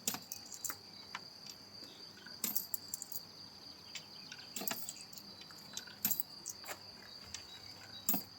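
Steady high-pitched insect chirring, crickets or cicadas, with a few scattered clicks and knocks.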